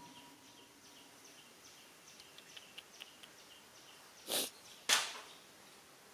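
Macaque troop: a run of faint, short, high squeaks, then two loud, short, noisy huffs about half a second apart near the end.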